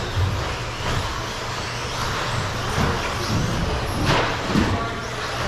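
Radio-controlled stadium trucks racing on an indoor carpet track: a steady mix of motor whine rising and falling with the throttle, and tyres and chassis on the carpet and jumps, with a sharp knock about four seconds in.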